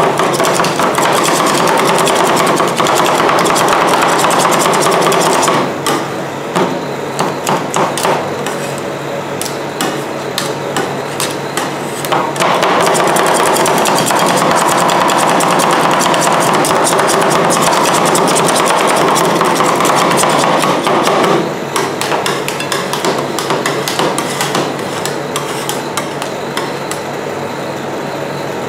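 Two metal spatulas chopping rapidly against a steel cold plate, working a freezing rolled-ice-cream mixture into a dense clatter of taps. There are two long spells of fast, loud chopping, with quieter, sparser strokes between them from about 6 to 12 seconds in and again from about 21 seconds on.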